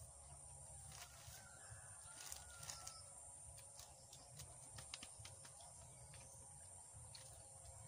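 Near silence, with a faint rooster crowing once about a second and a half in and scattered soft clicks.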